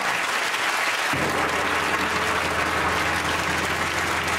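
Studio audience applauding steadily, with a low steady hum setting in about a second in.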